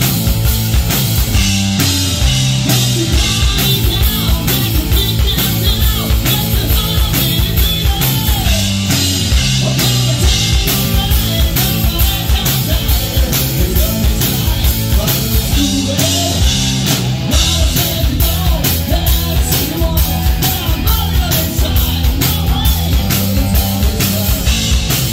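Live rock band playing: drum kit, electric bass guitar and a male singer.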